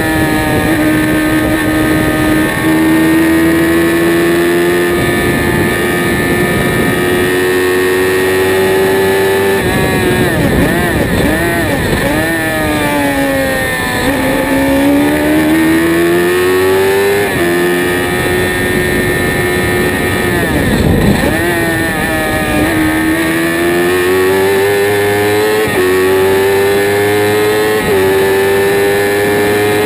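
Spire GT3 sports racing car's engine heard onboard at racing speed: a loud, steady high note that climbs under acceleration. Around ten to fourteen seconds in the note drops and wavers as the car brakes for a corner, then climbs again through the gears with a few step changes in pitch.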